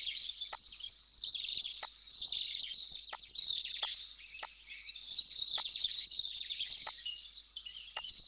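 Many small birds chirping continuously and high-pitched in the background, with a sharp computer-mouse click about every second.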